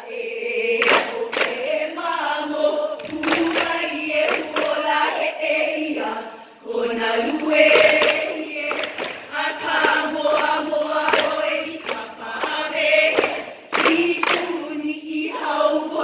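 Group of women chanting a Hawaiian hula mele in unison, held sung notes that shift pitch every second or so. Sharp knocks from gourd ipu struck by the dancers cut in at intervals of one to two seconds.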